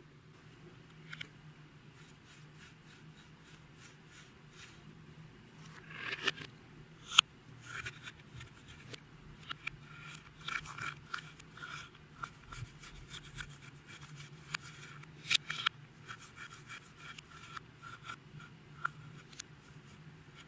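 Clear slime being worked by hand, giving off irregular sticky clicks, pops and crackles. The clicks grow busier after a few seconds, with a couple of sharper snaps.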